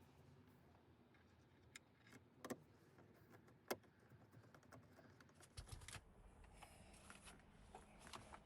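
Scattered small clicks and rattles of car dashboard parts and tools being handled, sharpest about three and a half seconds in and coming in quick clusters over the last few seconds, over near silence.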